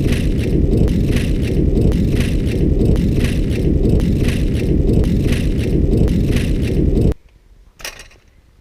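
Dutch-style bicycle rattling while being ridden: a clatter repeating in a regular rhythm a little under twice a second over heavy wind and road rumble. The sound cuts off abruptly about seven seconds in, leaving a few faint clicks.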